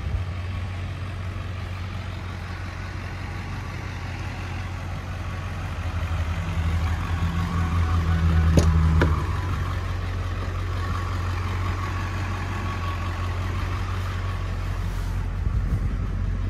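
Ford 7.3-litre PowerStroke V8 turbo diesel idling steadily, louder for a few seconds around the middle. There are two sharp clicks about halfway through.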